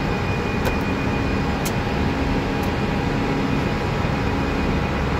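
Steady flight-deck noise of an Airbus A319 after take-off: engine and airflow rumble. Two faint clicks come within the first two seconds.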